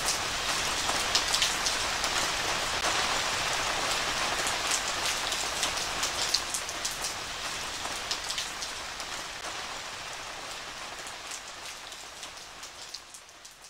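Heavy downpour falling on wet fallen leaves and ground, with many separate close drops striking. It holds steady for the first half, then fades out gradually.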